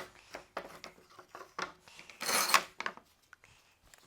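Clamps being set on a freshly glued cabinet door frame: a string of short metallic clicks and knocks, with one louder scraping rub about two seconds in.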